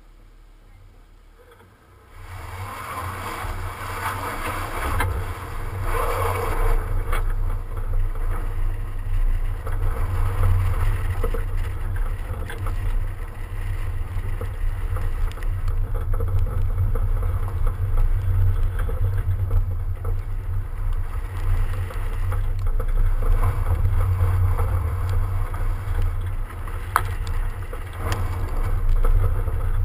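BMW 335d pulling away about two seconds in and driving on snow, heard from a camera mounted low on the car's outside: a steady low wind rumble on the microphone over tyre and engine noise.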